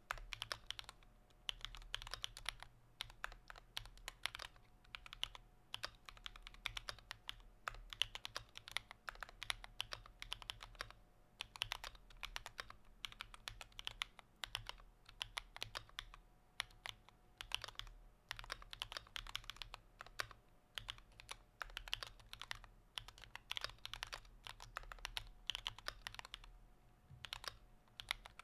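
Typing on a computer keyboard: a fast, continuous run of key clicks in bursts, with brief pauses every few seconds, over a faint steady hum.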